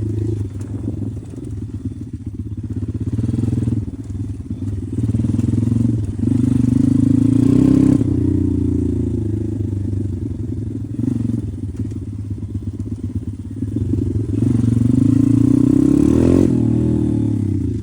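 Pit bike's single-cylinder engine running under load, revving up and easing off several times as the bike rides, with a quick rising rev and drop near the end.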